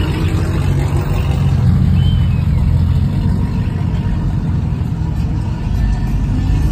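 Pickup trucks driving past one after another, their engines making a loud, steady low rumble.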